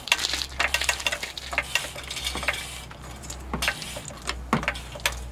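Floor jack being pumped to raise the rear of a Jeep Grand Cherokee: a run of irregular sharp clicks and ticks, a few each second, from the jack and its handle.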